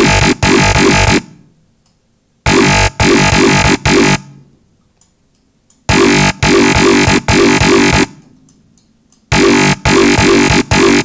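Growly, distorted bass patch from the Massive software synthesizer, its filter cutoff shaped by an attack-and-decay envelope, playing a chopped riff. Loud phrases of about two seconds, each broken by short stutters, repeat about every three and a half seconds with short silences between.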